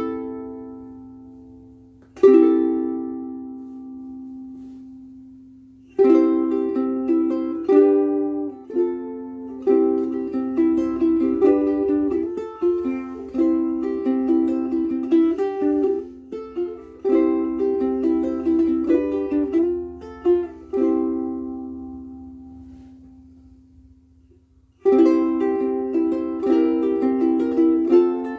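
Mahogany concert ukulele played, strung with badly worn Martin M600 strings. A chord is strummed and left to ring. Then comes a run of picked notes and chords, another long ringing chord that fades away, and the playing starts again near the end.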